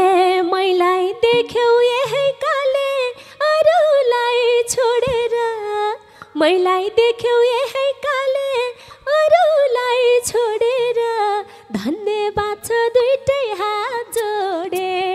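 A woman sings a Nepali dohori verse unaccompanied into a microphone. She sings long, wavering, ornamented phrases with brief pauses for breath between them.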